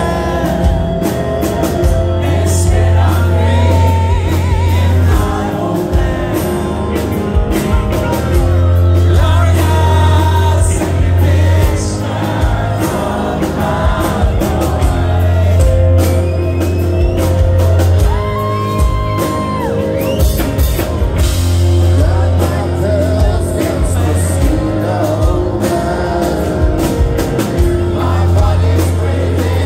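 Live rock band playing loudly: electric guitar, heavy bass and drums, with lead and backing vocals singing.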